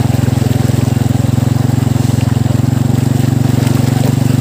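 An engine running steadily: a low drone with a fast, even pulse.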